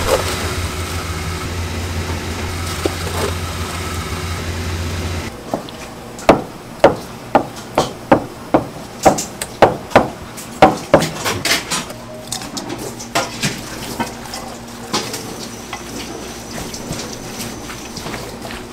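A steady low hum for about five seconds, then a kitchen knife chopping on a cutting board, about two strokes a second, thinning out into scattered knocks and clatter near the end.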